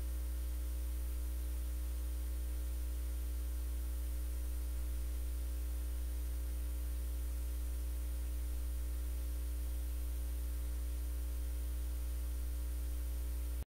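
Steady electrical mains hum with a ladder of overtones and a faint hiss, unchanging throughout; it cuts out abruptly at the very end.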